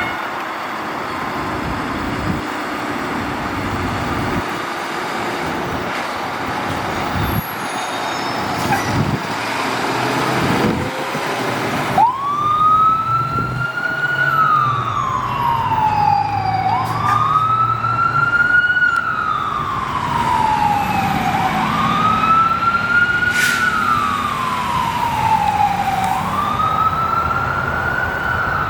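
Steady road and engine noise, then about twelve seconds in a fire engine's siren starts wailing. It repeats a quick rise and a slow falling tone about every four and a half seconds, over the truck's engine.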